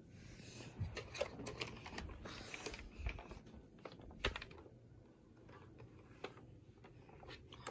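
Faint, irregular light clicks and taps with soft rustling, as of something being handled, with one sharper knock about four seconds in.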